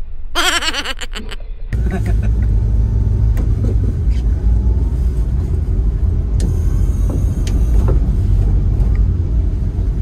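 Car driving on a wet road, heard from inside the cabin: a steady low rumble of engine and tyres. A brief pitched sound with several tones rings out in the first couple of seconds, before the rumble settles in.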